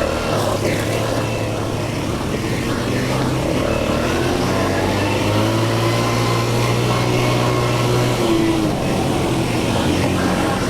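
ATV engine running steadily as it is ridden, a constant drone whose pitch drifts slightly up and down.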